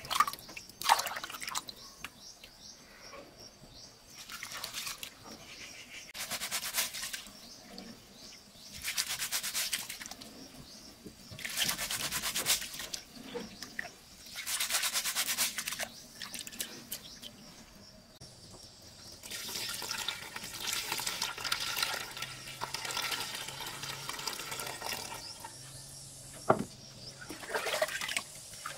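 Hands rubbing and swishing rice in a metal pot of cloudy water, washing the rice in a series of sloshing strokes about a second long. Water is poured from a bowl into the pot at the start and again near the end.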